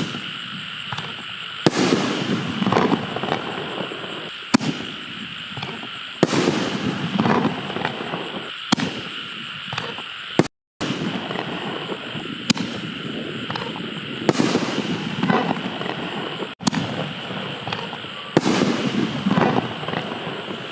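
A 24-shot canister-shell fireworks cake firing shot after shot. Each shell goes off with a sharp bang about every two seconds, followed by a second or so of crackling. The sound cuts out briefly just past halfway.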